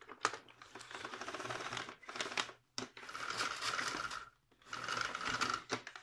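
Power cord being pulled out of a 1988 Panasonic MC-E62 cylinder vacuum cleaner's retractable cord reel in four pulls, each a rattly run of clicks as the reel turns.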